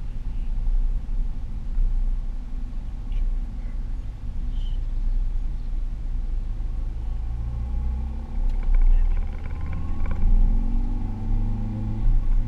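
Car engine and tyre rumble heard from inside the cabin while driving. Near the end, the engine note rises as the car picks up speed onto a straight road.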